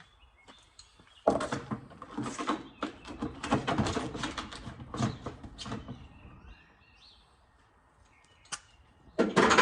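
A run of irregular clattering knocks and rattles, like hard objects being handled or set down, for about five seconds. Then a single sharp click, and a short loud clatter near the end.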